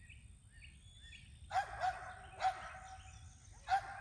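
A dog barking, four short sharp barks starting about a second and a half in, with faint birdsong before them.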